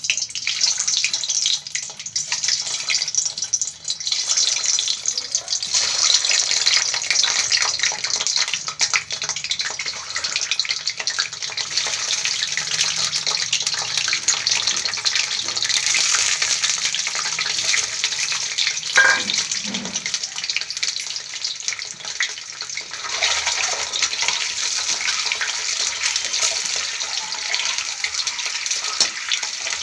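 Peeled hard-boiled eggs sizzling in hot mustard oil in a kadai: a steady, crackling hiss of frying. One brief sharp sound comes about two-thirds of the way through.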